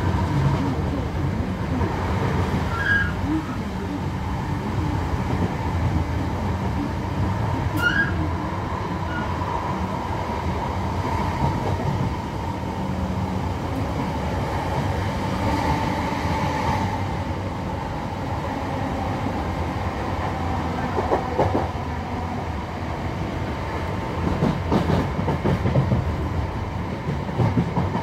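Interior ride noise of a Class 323 electric multiple unit under way: a steady rumble with a steady tone above it. A couple of brief squeaks come in the first ten seconds, and a spell of clattering near the end.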